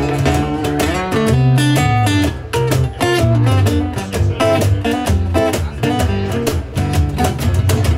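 Live acoustic band playing an instrumental passage: an acoustic guitar strummed in a steady rhythm over an electric bass line and hand-played conga drums.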